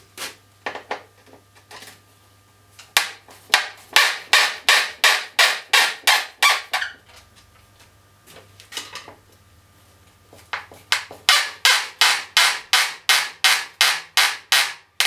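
Two runs of rapid, evenly spaced sharp knocks, about three a second, as a tool is struck against the ceiling-mounted fluorescent light fixture to work it loose. The first run starts a few seconds in, the second in the second half.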